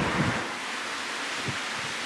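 Steady rushing noise of a heavy thunderstorm's rain and wind, a little louder in the first half-second, with a faint low thud about one and a half seconds in.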